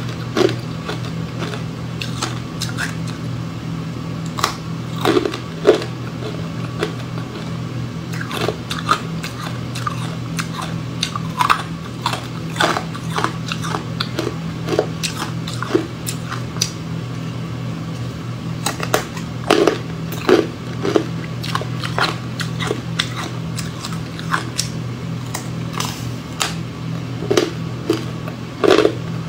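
A person biting and chewing hard frozen matcha ice: sharp, irregular crunches, with louder clusters every few seconds, over a steady low hum.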